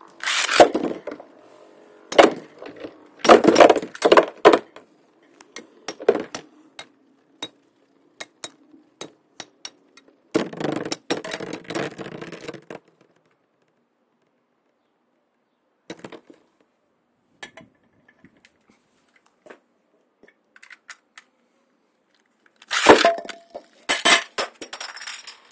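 Metal Beyblade spinning tops (Storm Pegasus 105RF and Lightning L-Drago 100HF) battling: sharp clinks and cracks as they strike each other and the stadium, with several longer clattering spells of repeated contact.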